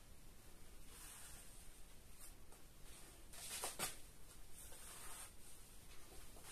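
Small plastic spatula scraping decorative burnt-cement paste across a plastic stencil on a wall, a few faint strokes with the loudest just past the middle.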